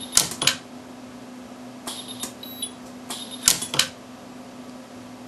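Orion micro TIG jewellery welder firing short pulse welds into a drilled-out porosity hole in a ring. Each pulse gives a sharp snap, and the snaps come in three short groups.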